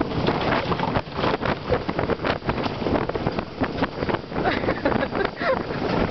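Wind rushing over the microphone, with the rumble and rapid clatter of a gravity-driven bobsled running fast down its rail track.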